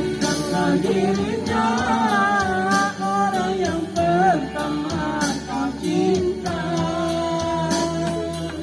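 Music: a song sung over a guitar accompaniment, the voice holding a long note near the end.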